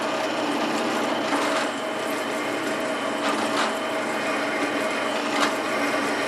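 Benchtop drill press running while a 1/4-inch twist bit is eased into a flame-cut steel plate: steady motor and spindle hum, with a few brief scrapes as the bit cuts.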